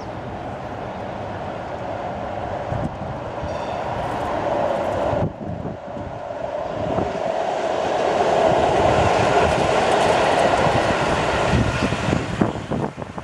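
A tram rolling on its rails with a steady wheel-on-rail rumble. It drops suddenly about five seconds in, then swells louder, and ends with a quick run of clicks as the wheels pass over track joints.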